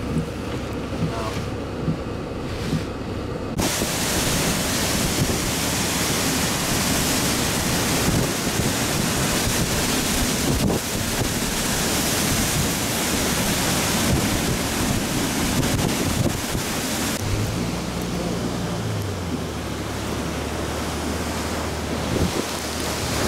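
Hurricane eyewall winds blowing hard with driving rain, battering the microphone with a dense, rushing roar. About three and a half seconds in it abruptly gets much louder. Near the end it eases somewhat and a low hum comes in underneath.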